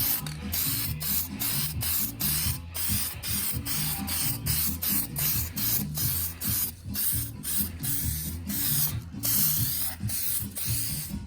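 Epoxy primer being sprayed onto car body panels in short, repeated hissing bursts, several a second.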